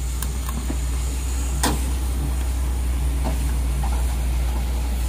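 Heavy diesel engine idling steadily with a deep, even hum, broken by one sharp knock about a second and a half in and a few fainter clicks.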